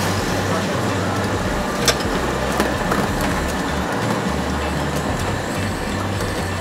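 Hawker-stall ambience: steady background noise and a low hum. A sharp clink comes about two seconds in, and a lighter one shortly after.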